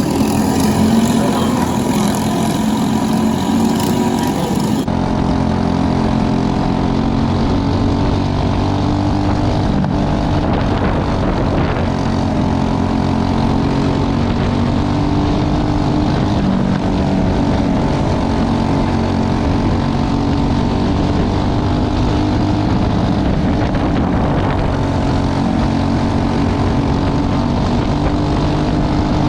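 Briggs & Stratton 206 four-stroke kart engines running steadily, a continuous buzzing engine drone; the high hiss drops away about five seconds in.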